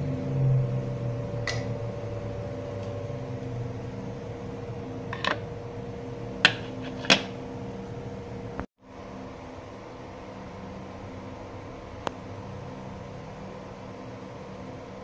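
Steady mechanical hum with a low rumble from a stove with a pressure cooker heating on it, the cooker not yet whistling. A few sharp clicks break it, the loudest two about half a second apart near the middle, and the sound drops out for a moment just after.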